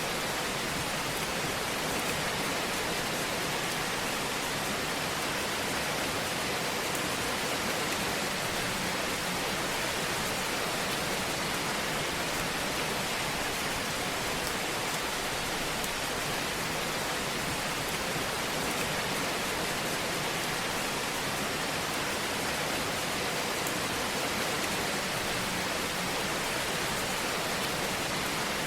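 Fire burning in a fireplace, giving a steady, even hiss with gentle crackling.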